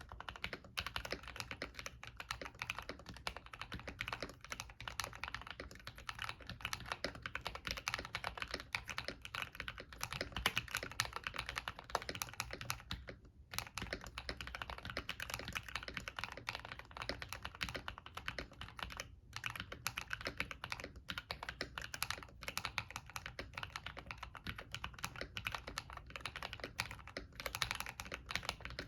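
Steady, fast typing on a modded MK870 tenkeyless mechanical keyboard with KTT Kang White linear switches and PBT keycaps: a continuous stream of keystrokes, broken by brief pauses about 13 and 19 seconds in.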